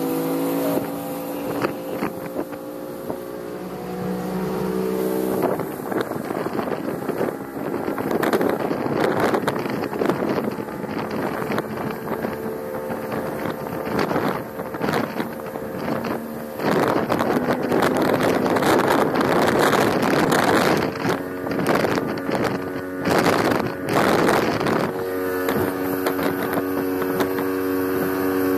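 60 hp outboard motor running steadily at speed as the boat planes. Gusts of wind on the microphone cover the motor for much of the middle, and its pitch shows clearly again near the end.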